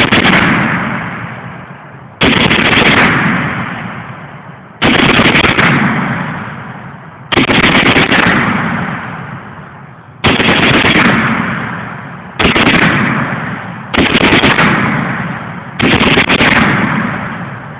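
A .50-calibre gun fired in single, very loud shots, seven of them about two to three seconds apart, each followed by a long booming echo that fades away.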